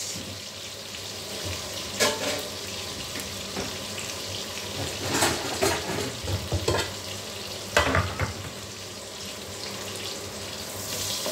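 Sliced onions and garlic sizzling steadily in oil in an aluminium wok, cooking toward caramelized. A few sharp clicks stand out, the loudest about two seconds in and about eight seconds in.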